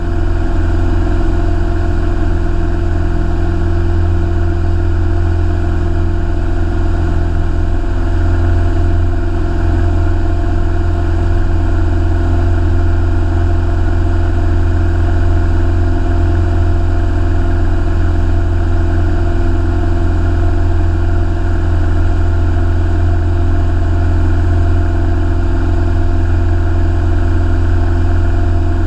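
Light aircraft's single piston engine and propeller droning steadily in flight, heard inside the cockpit as a loud, even low hum.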